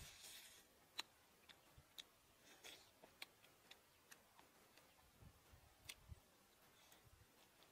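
Close-up eating sounds of fried frog being chewed and pulled off the bone: scattered sharp mouth clicks and lip smacks about once a second, with brief soft crunching.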